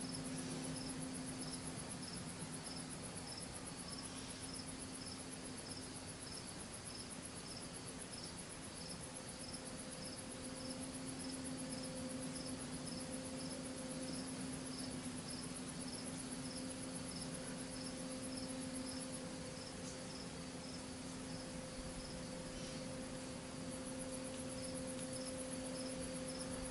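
Crickets chirping in a steady pulse of about two chirps a second, over a steady low hum and hiss. The chirping fades out about three-quarters of the way through.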